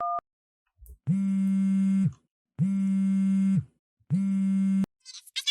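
The last keypad beep of a phone being dialled, then the phone's low buzzing ring tone, heard three times, each about a second long: the call ringing out, waiting to be answered. High chirping sounds begin near the end.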